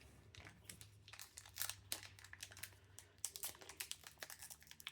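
Trading-card pack wrapper crinkling as it is torn open and handled: a faint, irregular run of short crackles.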